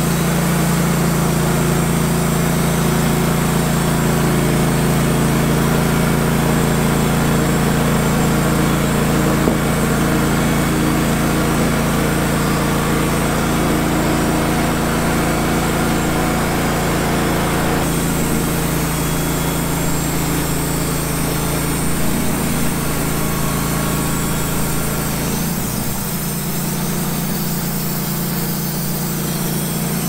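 Wood-Mizer LT15 GO portable band sawmill running steadily, its gas engine driving the band blade through a pine cant. A broad hiss over the engine drops off about two-thirds of the way through while the engine keeps running.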